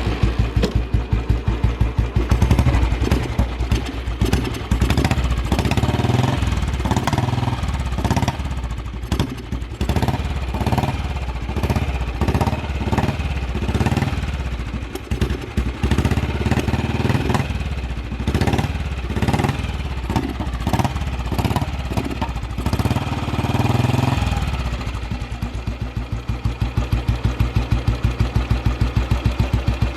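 1990 Royal Enfield Bullet 350's single-cylinder four-stroke engine running just after a cold start, with its typical thump. It runs unevenly, with the revs rising and falling, then settles into an even, steady idle near the end.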